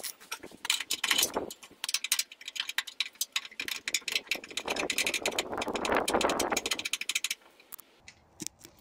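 A blade scraping paint off the van's steel chassis in rapid, scratchy strokes that stop about a second before the end, taking the spot back to bare metal so the earth strap's washer makes contact.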